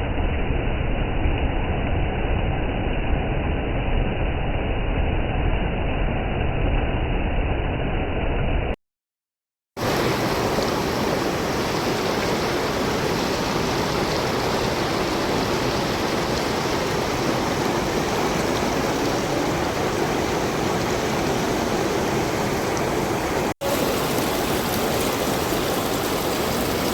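Rushing river water, a steady unbroken roar of flowing water. The first part is duller with a deep rumble; about nine seconds in it cuts out for a second of silence and comes back brighter, with another brief dropout near the end.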